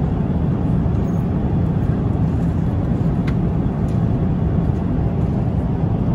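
Steady low rumble of cabin noise inside an Airbus A350-900 airliner in flight: engine and airflow noise, with a couple of faint clicks around the middle.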